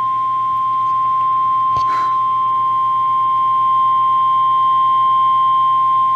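NOAA Weather Radio 1050 Hz warning alarm tone: a single steady high beep signalling that a severe thunderstorm warning is about to be read. It is heard through a weather radio receiver, with a faint hum under it and a brief crackle of static about two seconds in.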